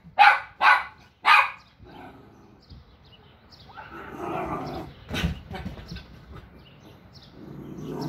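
A dog barking three times in quick succession, followed by fainter low noise and one sharp knock about five seconds in.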